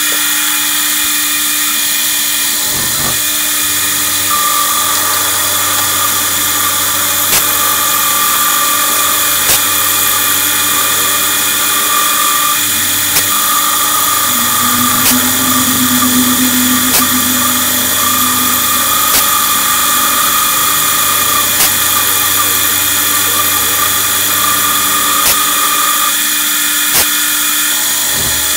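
CNC milling machine's spindle running steadily as an end mill cuts a circular pocket into an aluminium-alloy (Anticorodal) plate. A whining tone switches on and off every few seconds, and faint ticks come every couple of seconds.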